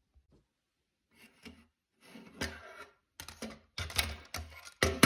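Lego Technic plastic parts clattering and rattling in short, irregular bursts as the model is handled, getting louder toward the end.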